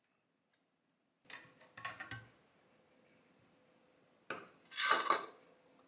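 Metal espresso tools being handled: a short clatter of knocks about a second in, then a louder metallic clinking with a brief ringing near the end.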